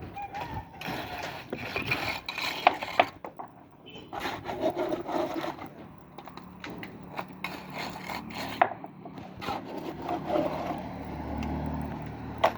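Irregular scraping and rasping of workers' hand tools on wet concrete during casting work, with sharp knocks scattered through. A low steady hum joins near the end.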